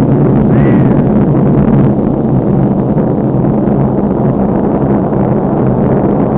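Loud, steady rumbling noise with a low drone underneath, and a short whistling tone that rises and falls about half a second in.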